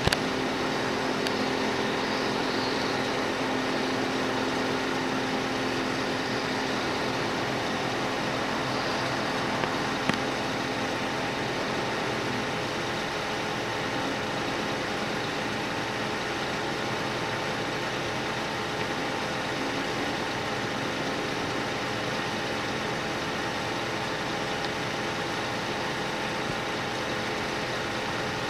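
A vehicle engine idling with a steady hum and a few constant tones, unchanging throughout; a single brief click about ten seconds in.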